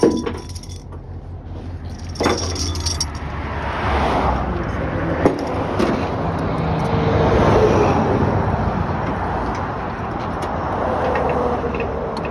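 Road traffic going by, one vehicle's noise building over a few seconds and easing off, over a steady low engine hum. A few sharp metal clicks come from the tie-down hardware being worked to secure a car on a flatbed trailer.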